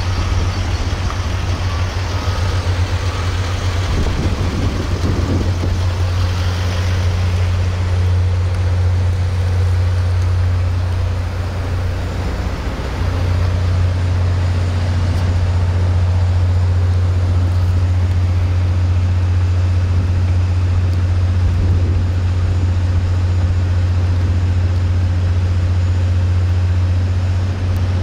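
A vehicle engine idling with a steady low hum. A reversing beeper sounds faintly in the first few seconds, then stops.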